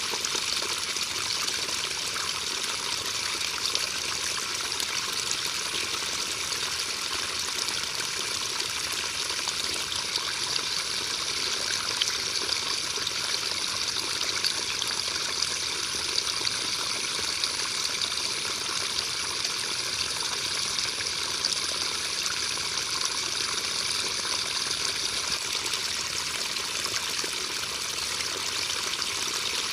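Rain falling steadily: a dense, even hiss with scattered ticks of single drops, unchanging throughout.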